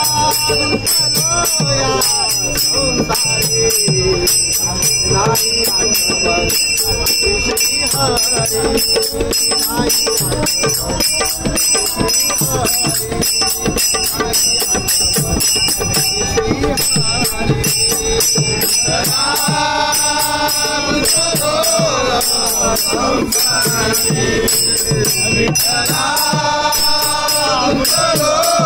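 Group of men singing a Marathi Vitthal bhajan (abhang), accompanied by small brass hand cymbals (taal) struck in a fast, steady rhythm with a ringing shimmer. The singing swells loudly about twenty seconds in and again near the end.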